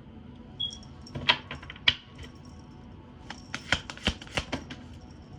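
Tarot cards and small objects being handled on a table: a series of irregular sharp clicks and taps, a few about a second in and a quicker run of them a little later.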